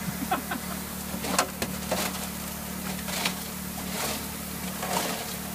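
Stones and gravel knocking in the metal hopper of a highbanker sluice, eight or so sharp clacks spread over a few seconds, over a steady rush of water. A small pump engine hums steadily underneath.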